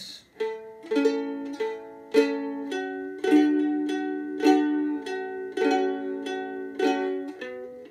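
Ukulele played in a pick-and-strum pattern: a single picked string, then a strummed chord, about two strokes a second. It moves through the chords C, F, A minor and G, changing every couple of seconds.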